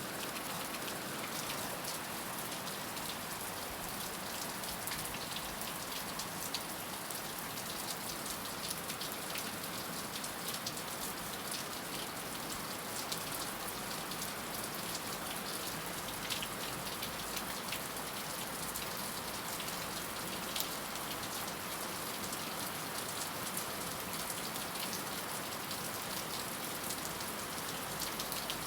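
Heavy rain falling steadily: a dense, even hiss with many sharp individual drop ticks.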